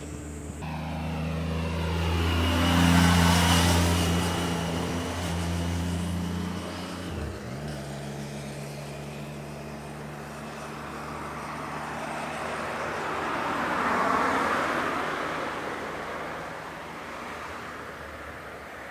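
Two road vehicles passing by one after the other, the first loudest about three seconds in and the second around fourteen seconds, each swelling and fading away. A steady engine hum runs underneath.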